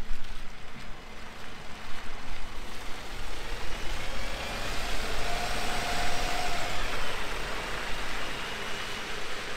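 Double-decker bus driving past: a low engine rumble and tyre noise on the wet road swell as it goes by about halfway through, with a faint whine, then fade as it pulls away.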